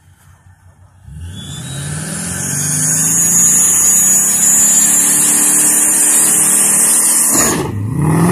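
Ford Mustang V8 revving up on the start line, its pitch climbing over a couple of seconds and then held high and steady, with a short dip in level near the end.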